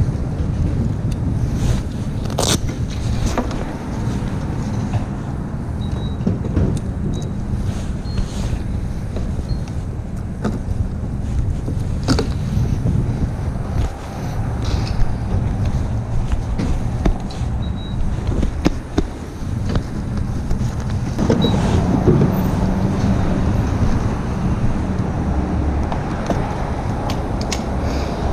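BMW F800ST's parallel-twin engine running steadily, picked up by a recorder on the seat, with occasional sharp clicks over it.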